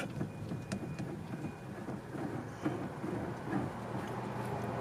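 Steady low rumble inside a car's cabin, with a few faint clicks.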